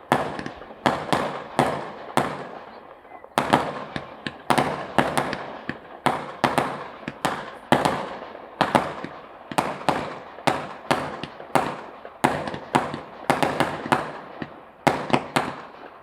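Fireworks going off in rapid succession: sharp bangs, two or three a second, each trailing off in crackle, with a short lull about three seconds in.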